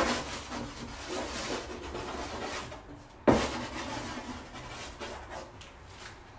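A Derwent XL white charcoal block dragged and scratched across a wax-coated plywood panel, in two bouts that each begin with a sharp knock of the block against the board, at the start and about three seconds in, and trail off as the stroke goes on.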